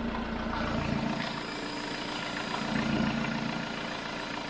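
Chevrolet Tracker engine idling, with a high hiss that comes and goes over the steady idle; the mechanic calls it a strange noise.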